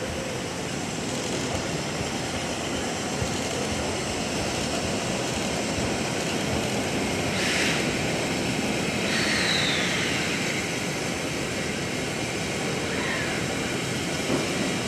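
The steam locomotive C57 1 giving off a steady roar of escaping steam, with no chuffing beat. About halfway through comes a brief sharper hiss, then a short falling squeal.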